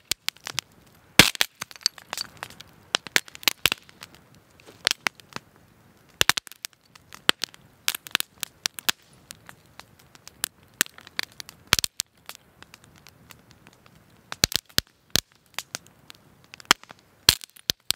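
Wood fire crackling with frequent irregular sharp pops and cracks, the loudest about a second in and again about two-thirds of the way through. Some of the cracks come from fire-heated rocks that are too brittle for the heat, bursting into sharp pieces.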